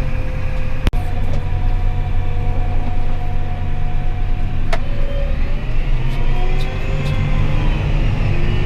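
Truck engine running steadily under way, its pitch rising about six seconds in as it speeds up. Two sharp clicks sound about one second and nearly five seconds in.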